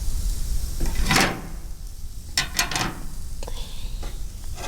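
Kitchen handling sounds: a short scrape about a second in, then a quick cluster of knocks and clatter about two and a half seconds in, with a few light clicks after.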